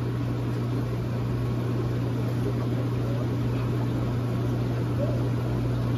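Steady low electrical hum with a hiss over it, the running of aquarium pumps and filtration equipment.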